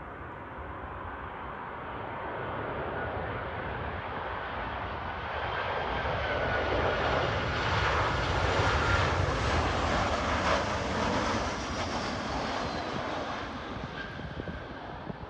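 Alaska Airlines Boeing 737 jet landing, its engine noise building as it comes down and rolls past, loudest about eight to ten seconds in, then fading as it rolls away. A high whine rides over the engine rush and sinks slightly in pitch as the jet passes.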